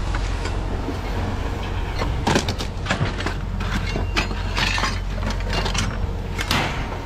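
Scrap being handled and tossed: a series of clattering knocks and bangs, most of them bunched between about two and five seconds in, with another near the end, over a steady low rumble.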